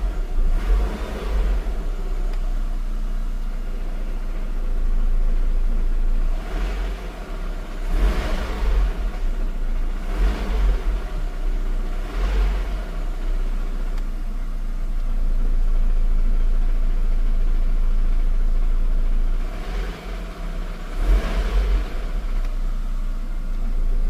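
Renault Laguna 3 2.0T engine running with a strange noise that the owner places somewhere in the engine or transmission. A steady running sound with a heavy low rumble, rising in louder swells every couple of seconds at irregular intervals.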